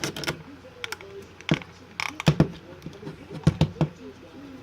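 Hard plastic toy parts clicking and knocking as small 3D-printed pieces are pressed and snapped into an action figure's joints. The clicks are irregular, some in quick pairs and threes.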